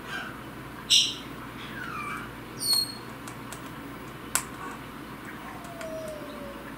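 Goffin's cockatoo giving a string of short squeaks and whistles, the loudest about a second in, with a sharp click about four seconds in and a slow falling whistle near the end.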